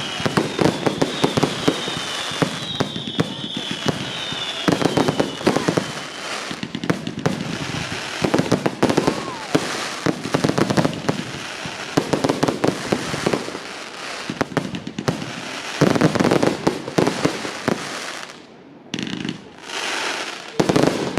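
Fireworks display: a dense, continuous barrage of bangs and crackling shells, with several short falling whistles in the first few seconds. The barrage thins out near the end.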